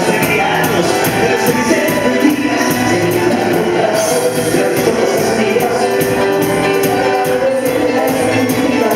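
Live cuarteto music: male singers on microphones over a band with congas and a steady percussion beat.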